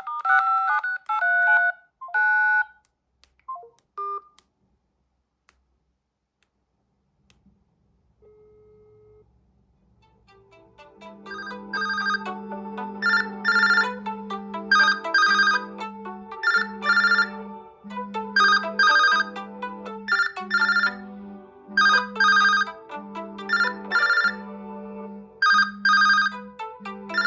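Smartphone incoming-call ringtones. A short melodic ringtone stops about two seconds in, a few faint blips follow, and after a near-silent gap a new ringtone fades in: a repeating tune over a steady low note, with bright chords recurring every second or two.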